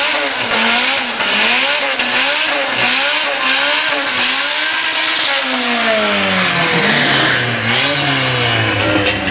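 Drag car doing a burnout: the engine is revved up and down over and over while the spinning tyres squeal with a steady hiss, the revs dropping away late on before climbing again.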